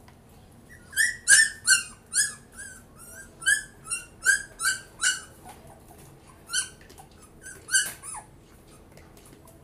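Puppies whining and yelping in their crate: a run of short, high-pitched cries that fall in pitch, about two a second, dying away near the end. They are crying while their milk is being prepared.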